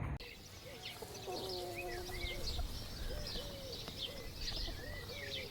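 Several birds calling together: short low notes that rise and fall, repeated again and again, mixed with quick higher chirps.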